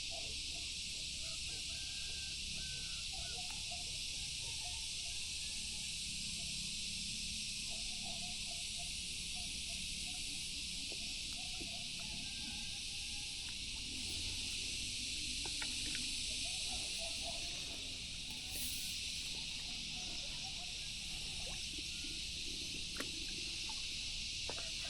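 Steady high-pitched drone of a dense insect chorus, with faint short chirps scattered through it.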